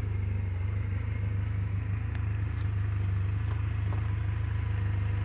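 SMC Captain 300 quad's Honda engine idling steadily, a low even running sound with no revving.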